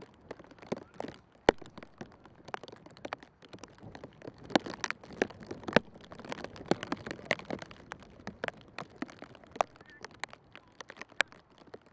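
Outdoor football training-ground ambience of players warming up: a string of irregular sharp clicks and knocks over a faint background.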